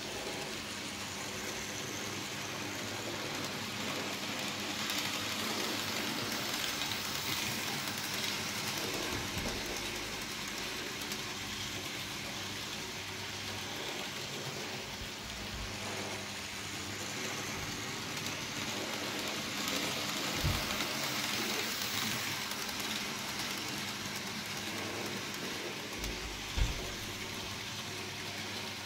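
N gauge model train running on the track: a steady hissing whir of the small motor and wheels on the rails, swelling and fading a little as it passes. There are two soft thumps in the second half.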